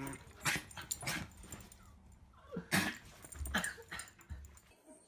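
A dog sneezing in a series of short, sharp bursts, about five in all, the loudest near the middle.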